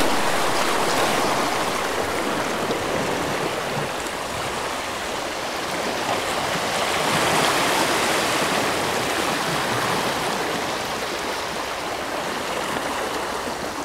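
Steady rush of water, swelling slightly around the middle and easing off toward the end.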